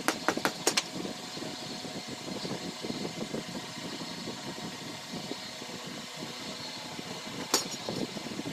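Wooden strips and plastic pipe parts being handled and fitted together by hand. A few sharp clicks come in the first second and another sharp click near the end, over a steady mechanical hum.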